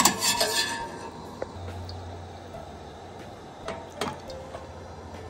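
Stainless steel kitchenware being handled while vegetables are blanched. It opens with a short wet rattle as just-blanched vegetables land in a metal mesh colander. Then a few light metal clinks of a utensil against the pot follow, over a low steady hum that comes in after about a second and a half.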